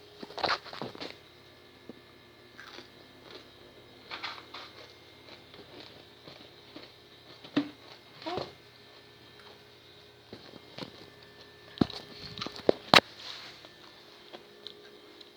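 Scattered rustling and clicking of handling a container of shoestring potato sticks, with a few sharp clicks near the end.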